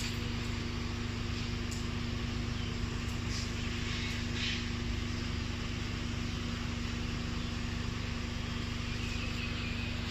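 A steady low mechanical hum with one strong constant tone and a few faint light ticks.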